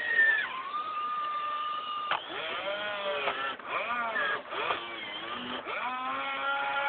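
RC excavator's electric motors whining: a steady whine that drops in pitch about half a second in, then about three seconds of quick rising and falling whines as the machine is worked, settling back to a steady whine near the end.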